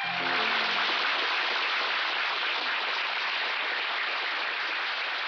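Concert audience applauding as the song ends, with the last note dying away in the first half second. The clapping is dense and steady and eases off slightly toward the end.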